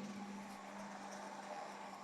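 KDK ceiling fan running: a steady low hum with a faint hiss of moving air.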